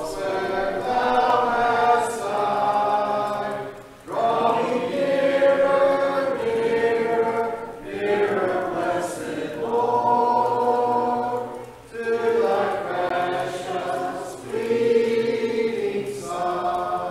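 Congregation singing a hymn a cappella, with no instruments, in phrases of about four seconds with short breaks between them.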